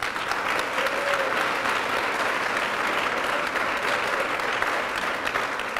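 Large audience applauding steadily, the clapping starting at once as the thanks end.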